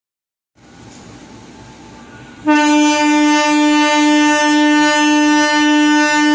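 A CC 203 diesel locomotive's air horn sounds one long, steady blast from about two and a half seconds in, the signal for the train to depart.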